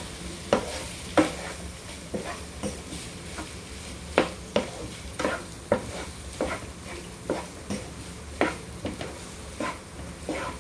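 Spatula scraping and tapping against a pan as boiled macaroni and fried vegetables are stirred together, in irregular strokes about two a second, over a light sizzle.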